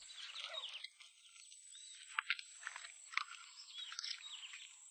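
Faint, scattered chirps and sharp clicking calls of small wild animals, with a few louder clicks in the middle and toward the end.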